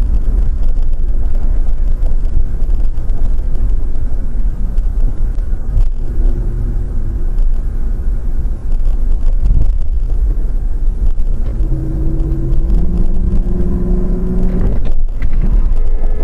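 A moving car's engine and road noise, picked up from inside the car: a loud, heavy low rumble. About twelve seconds in, an engine note rises slowly for a few seconds, then cuts out briefly near the end.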